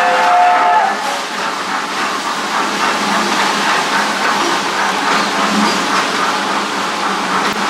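Whistle of a small amusement-park ride train on an elevated track, a chord of several tones that ends about a second in, followed by the steady noise of the train running along the track.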